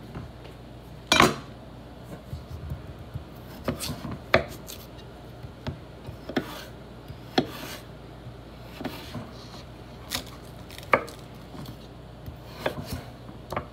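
Chef's knife slicing a raw potato on a wooden cutting board, the blade knocking through onto the board in separate sharp strokes about once a second. One louder, ringing knock comes about a second in.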